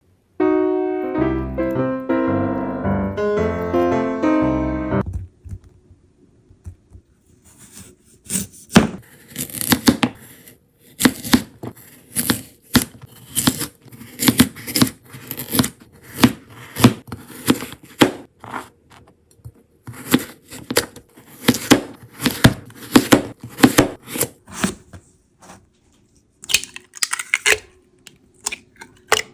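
A short electric-piano jingle for the first five seconds, then a fresh carrot being grated: a long run of rasping strokes at about one to two a second.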